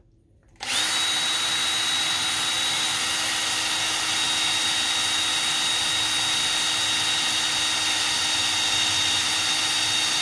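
Power drill running at a steady speed, boring a screw hole through the sheet-metal lid of an ammo box, with a steady high whine over the grinding. It starts about half a second in and runs without a break.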